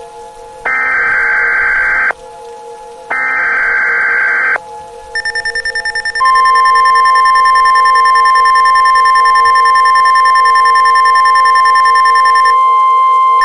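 Emergency Alert System SAME header: two harsh bursts of digital data tone, each about a second and a half long with a second's pause between, marking the start of a new alert. A second of fast-pulsing beeps follows, then the steady two-tone EAS attention signal.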